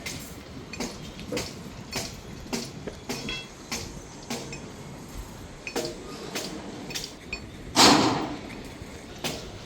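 Knocking from column concreting work: a steady rhythm of sharp knocks, a little under two a second, with one louder, longer rushing burst about eight seconds in.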